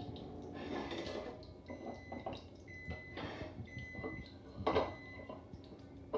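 Cooking utensils knocking and scraping against a frying pan as browned chicken pieces are lifted out, several separate clinks and knocks.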